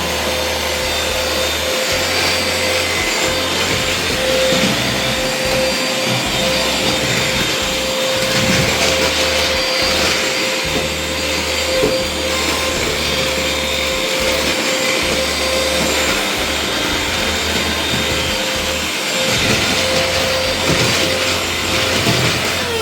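Hoover HF1 cordless stick vacuum cleaner's motor running steadily, a whine over airflow hiss, winding down with a falling whine as it is switched off at the very end.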